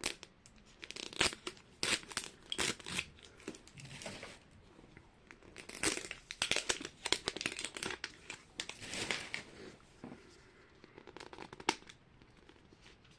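Plastic Mini Brands packaging crinkling and tearing in irregular bursts as the capsules and their small wrapped packages are opened by hand, with sharp clicks mixed in.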